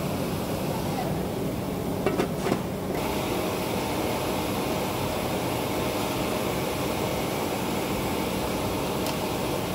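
Steady rushing noise of a commercial kitchen, with large stockpots of pork broth boiling on a row of burners. About two seconds in come three quick metal knocks, like a ladle striking the pot.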